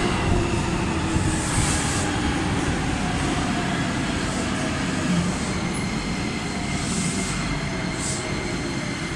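Beijing Subway DKZ4 train's Toyo IGBT-VVVF inverter and traction motors whining as the train slows into the station, the whine gliding steadily down in pitch over rolling wheel-on-rail rumble. A few brief high hisses break in.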